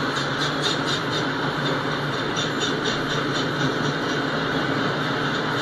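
Autorack freight cars rolling past: a steady rumble of steel wheels on the rails, with runs of light clicking near the start and again about halfway through.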